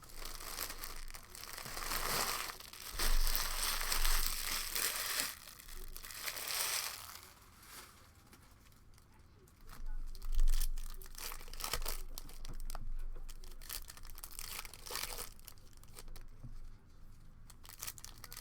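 Trading card packaging being torn open and crinkled: long bursts of crinkling in the first seven seconds and again about ten seconds in, then quieter handling with scattered light clicks.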